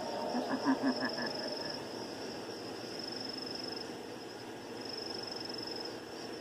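Outdoor night ambience: insects keep up a steady high-pitched trill that fades in and out, over an even background hum. In the first second and a half a short run of laughter trails off.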